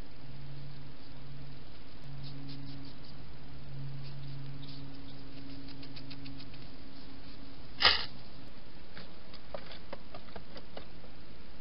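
Faint, scattered clicking and scuffling of a wild hedgehog moving and feeding close to the microphone, over a steady hiss, with one sharp, louder click about eight seconds in.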